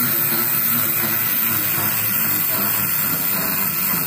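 52Toys Stranger Hands clockwork wind-up toy hand running, a steady whirring hiss as the unwinding spring drives its fingers to crawl forward.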